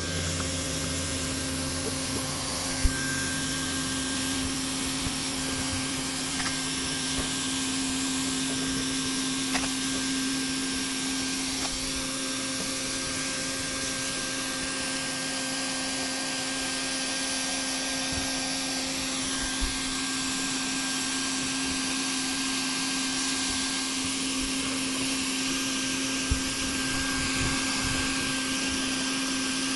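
Hot-air welding gun blowing steadily, a constant whir with a steady hum tone, as it heats the lap of an SBS roofing membrane. A few small knocks sound now and then.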